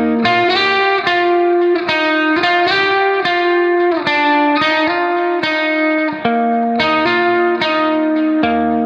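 Background music: a melody of plucked-string notes, each struck note ringing and decaying, in a steady run of two or three notes a second.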